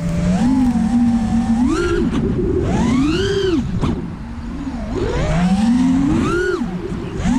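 Brushless motors of a 5-inch FPV freestyle quadcopter (T-Motor Velox 2400 kV) whining in flight, the pitch swooping up and down with the throttle several times; the whine drops and softens briefly about four seconds in before climbing again.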